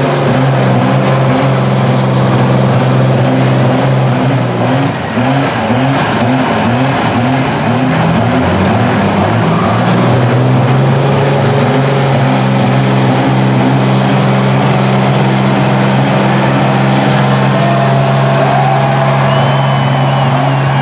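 Lifted diesel pickup truck engines running hard in deep mud, revved up and down in quick pulses at first and then held at steady high revs as the tyres churn. A thin, high whine rises and falls over the engines.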